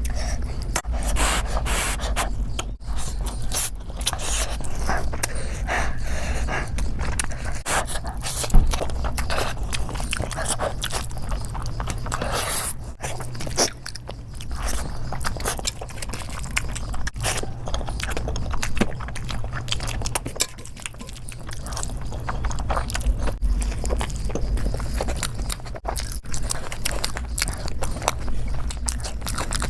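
Close-miked eating sounds: food and utensils scraping on a plate along with biting and chewing, a dense run of short irregular clicks and crackles over a steady low hum.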